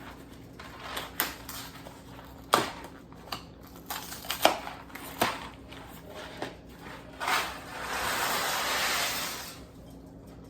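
Dry elbow macaroni handled in its box with several sharp clicks and rustles, then a steady rush of the noodles pouring out into the pot for about two seconds near the end.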